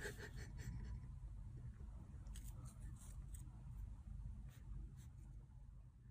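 Faint scattered clicks and light rubbing as a kitten paws at and bites a small object it holds in its front paws, over a low room hum.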